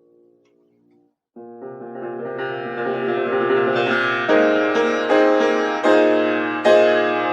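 Solo piano: after about a second of near silence the piano comes in and builds in loudness, striking accented chords roughly once a second toward the end.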